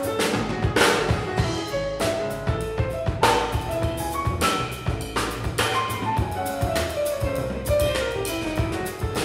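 Jazz trio playing live: drum kit with frequent cymbal and snare strikes, a plucked upright double bass, and piano, with a falling run of notes about two thirds of the way in.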